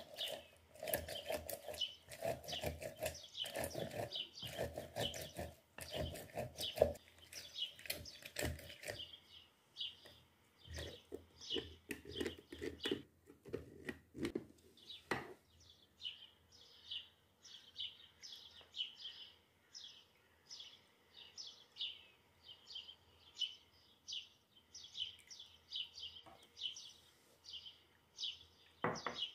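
A small bird chirping over and over, short high chirps about twice a second. Through the first nine seconds a run of knocks and clatter is louder than the chirps, with the loudest knock near seven seconds in, and softer rustling follows until about fifteen seconds in.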